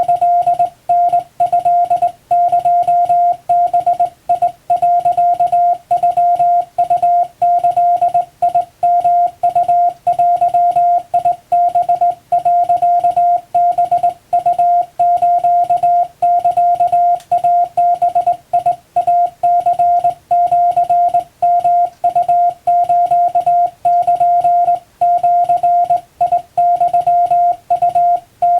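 Japanese wabun Morse code sent by hand on a telegraph key: a single steady beep keyed on and off in short dots and longer dashes, with brief gaps between characters.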